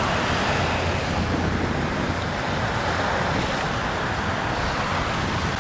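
Wind buffeting the microphone: a steady rushing noise with a low rumble underneath.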